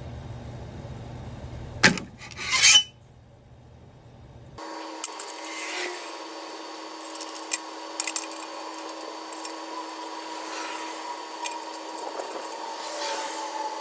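A steel saw blade being handled and clamped down: a sharp clank about two seconds in, then a short loud scrape of metal. After that comes a steady mechanical hum with a few light clicks and scrapes as the clamp is worked.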